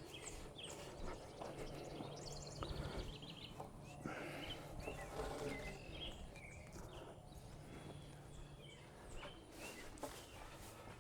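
Faint birds chirping and trilling, with a few light knocks and a low steady hum that fades out near the end.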